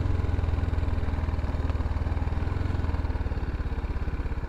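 BMW G310GS's single-cylinder engine running at low revs with an even, rapid pulse, getting slightly quieter near the end.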